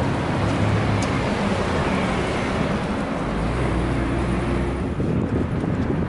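Road traffic: a car's engine and tyre noise going past, with the hiss dying away about five seconds in.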